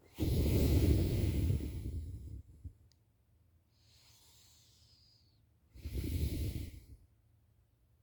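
A sleeping person snoring heavily: a long, loud snore of about two seconds at the start, a softer breath out in the middle, then a second, shorter snore about six seconds in.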